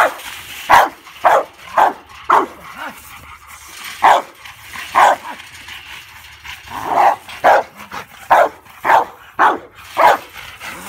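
Rottweiler barking repeatedly in short, loud barks, in quick runs with a brief pause near the middle: territorial guarding barks at a stranger at the fence.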